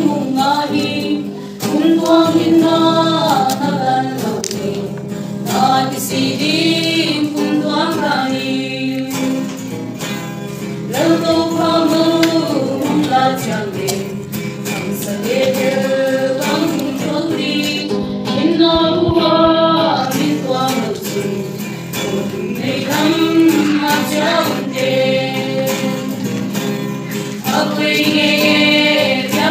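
A small group of girls singing a gospel hymn together, in the Simte language, with a strummed acoustic guitar accompaniment.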